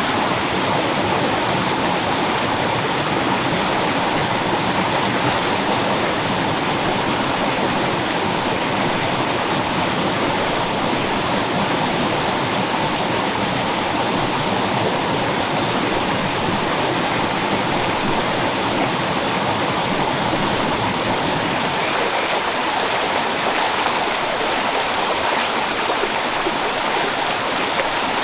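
Shallow rocky stream running over stones and small rapids: a steady rushing of water.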